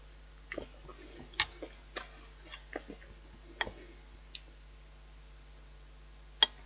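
Small clicks and knocks of a dish and cutlery being handled, a dozen or so over the first four seconds, then one sharper knock near the end.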